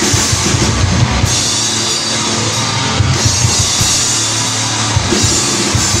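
Blackened hardcore band playing live and loud: pounding drums with cymbal washes under distorted guitar and bass.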